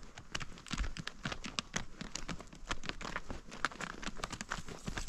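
A horse walking on a stony gravel track: its hooves clop and knock on the loose rocks in an uneven run of sharp clicks, several a second, with stones crunching underfoot.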